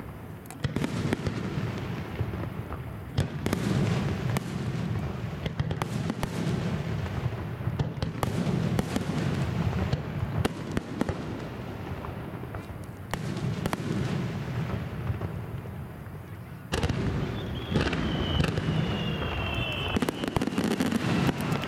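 Aerial firework shells bursting in quick succession: a long run of sharp bangs over a low rolling rumble. The barrage grows louder and denser in the last few seconds.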